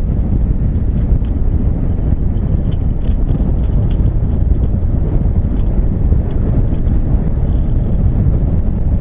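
Steady rush of wind on the microphone of a Honda CB1300 Super Bol d'Or motorcycle riding along at speed, with its engine and road noise underneath.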